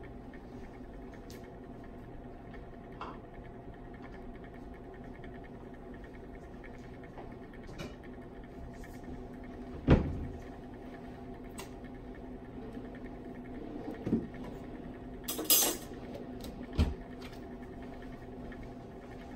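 Steady electrical hum of lab equipment, broken by a loud knock about ten seconds in and a few more knocks and a short bright clatter near the end, as of glassware or dishes being handled.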